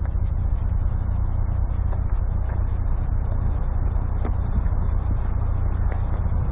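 Cloth rubbing and scraping in the fur of a taxidermy bear mount as its underside is scrubbed clean of soot, with a few faint ticks, over a steady low rumble.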